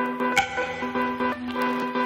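Background music: held pitched notes over a regular pulse, with one strong struck note about half a second in.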